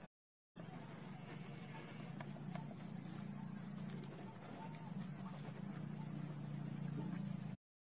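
Outdoor ambience: a steady high insect drone over a low hum, with a few faint short chirps. It drops out completely twice, for under half a second each time.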